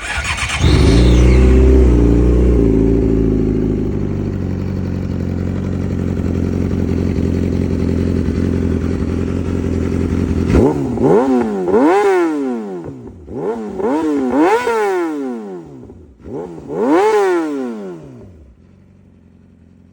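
Yamaha R6's inline-four engine through an M4 slip-on exhaust, starting up about half a second in and idling steadily. In the second half it is revved in a series of quick blips, each rising and falling in pitch, before dropping away near the end.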